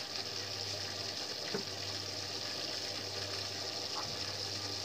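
Thickened Manchurian gravy simmering in a steel pot on a gas stove: a steady hiss with a low hum underneath and a couple of faint pops from the bubbling sauce.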